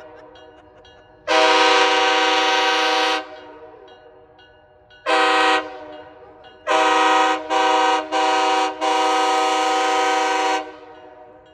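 An approaching passenger train sounding its air horn, a steady chord of several tones, in loud blasts: one long blast about a second in, a short one near the middle, then three short blasts and a long one in quick succession.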